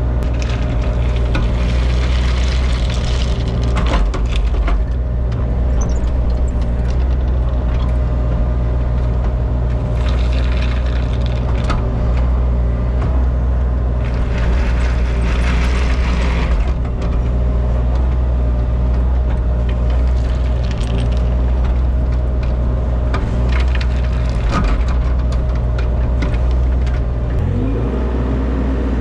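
Diesel engine of an excavator running steadily under work. Several louder rushing, scraping passages of a few seconds each come and go over it.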